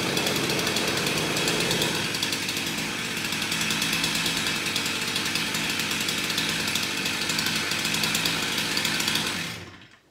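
Two-stroke chainsaw running at high revs with its bar plunged into a large upright log, boring a slot. The sound stops abruptly near the end.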